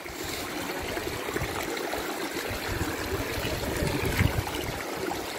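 Shallow river water flowing and trickling between boulders, a steady rushing hiss, with a few low knocks about four seconds in.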